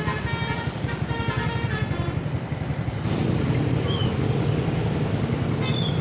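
Busy road traffic with motorcycle engines passing close by. In the first couple of seconds a multi-tone musical horn sounds a short run of notes.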